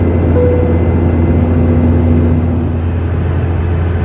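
Steady in-flight cabin drone of a Boeing 717-200 airliner during descent: a low rumble from the rear-mounted Rolls-Royce BR715 turbofans and airflow, with a steady low hum over it.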